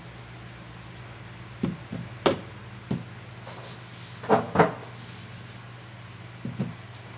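A series of short, light knocks and clicks, the loudest pair a little past the middle, over a steady low hum.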